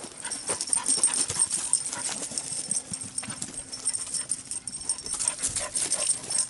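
A dog moving about close by: a string of short scuffs and rustles of paws on dirt and leaf litter.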